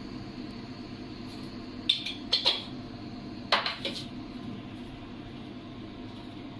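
Kitchenware clinking around a stainless steel cooking pot: a quick run of about four sharp clinks some two seconds in, then three more about a second and a half later, over a steady background hum.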